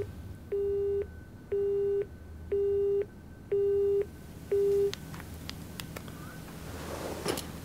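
Telephone busy tone: five short, low beeps, each about half a second long with half-second gaps, then it stops. A short breath near the end.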